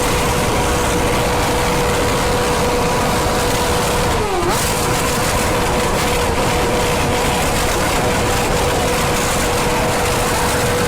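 Motorcycle engine running at a steady speed, with a brief drop in pitch that recovers about four seconds in.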